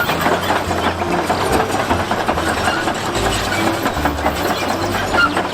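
Steady heavy-engine rumble with a low pulsing underneath, like a bulldozer's diesel engine sound.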